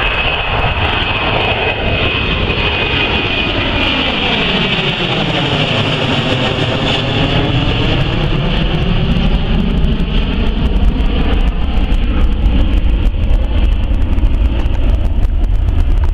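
Boeing 737-800's CFM56-7B jet engines at take-off thrust as the airliner climbs overhead and away: a loud, steady roar with a sweeping, phasing quality. A high fan whine fades out over the first few seconds, and a deeper rumble grows toward the end.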